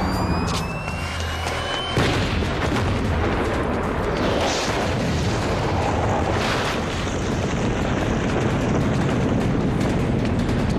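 A car bomb goes off about two seconds in with a sudden boom, followed by a long, loud rush of blast noise.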